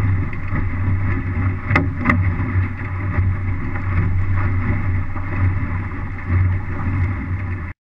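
Wind buffeting the microphone and water rushing past the hull of an MC-Scow sailboat under way, with two sharp knocks about two seconds in. The sound cuts off suddenly near the end.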